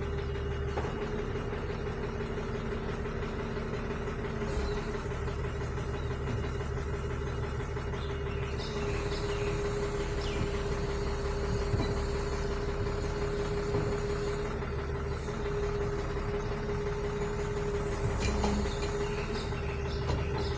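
A heavy vehicle's engine idling steadily, with a constant mid-pitched hum over a low rumble.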